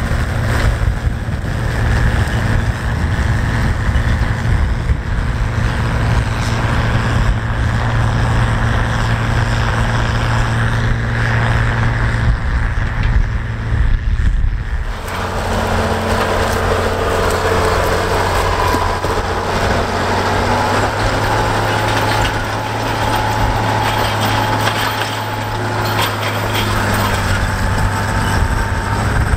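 Oliver 1850 tractor's turbocharged Perkins six-cylinder diesel running steadily under load, pulling a chisel plow through corn stalks. The engine note shifts slightly about halfway through.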